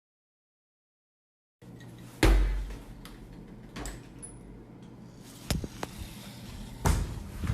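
A low steady hum with a handful of sharp knocks and thumps, the loudest about two seconds in and another strong one near the end, after a second and a half of silence.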